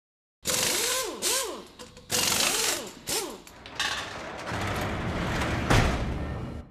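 Workshop power-tool sound effects: two loud noisy bursts with a motor whine that rises and falls, like a drill or impact wrench spinning up and down, then a steadier mechanical rumble with one heavy hit near the end.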